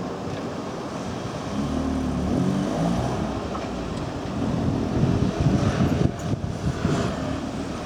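A motor vehicle passing, its engine note rising in pitch, then a louder, uneven rumble with a few sharp clicks from about five to seven seconds in.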